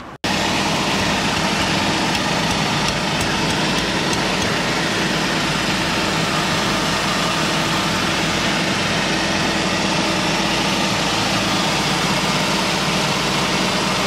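Suzuki Wagon R's 660 cc three-cylinder K6A engine idling steadily, heard from underneath the car close to the exhaust, with the front exhaust pipe newly replaced to cure a rattle. The sound cuts in just after the start.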